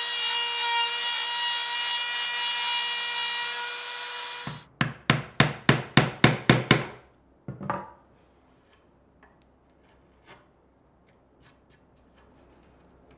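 Router running steadily at one pitch, its straight bit cutting a shallow butt-hinge mortise in a wooden face frame, then cutting off suddenly about four seconds in. A quick run of about eight sharp taps follows, a chisel being struck to chop the mortise's edges, then two lighter taps and a few faint ticks.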